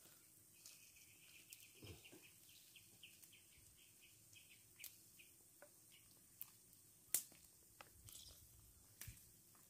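Faint outdoor quiet, with a bird chirping a quick series of short high notes over the first few seconds. Scattered light clicks and taps come from chopsticks on a frying pan and a plastic food box, the sharpest about seven seconds in.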